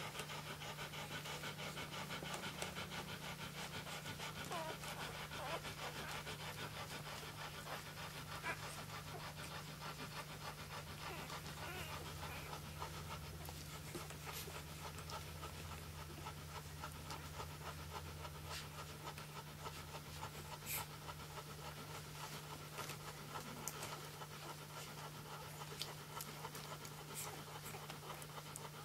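Flat-coated retriever mother panting steadily while nursing her newborn puppies, over a steady low hum.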